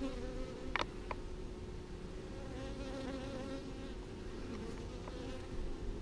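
Honeybees buzzing as they fly in and out at the hive entrance, a steady hum with a few bees passing close, and two sharp ticks about a second in.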